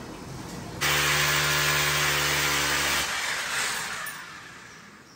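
An electric power tool starts abruptly about a second in and runs steadily with a loud hum and hiss for about two seconds. It is then switched off and winds down, fading out over the next second or so.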